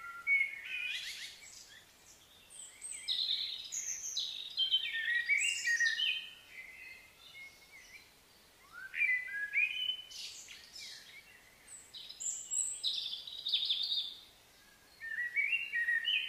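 A songbird singing in bouts of quick, varied high notes. Each phrase lasts two to three seconds, with short pauses between them.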